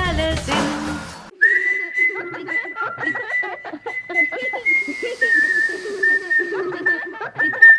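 The song's last note dies away in the first second, then a long, high, steady whistle sets in and holds, stepping slightly up and down in pitch, over a jumble of lower warbling sounds.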